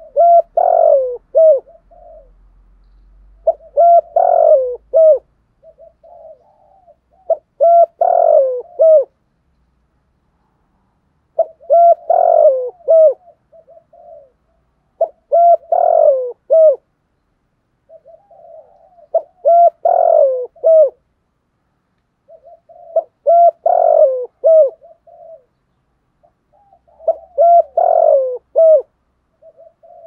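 Spotted dove cooing: a phrase of several low coos, each phrase led in by softer notes, repeated about every four seconds.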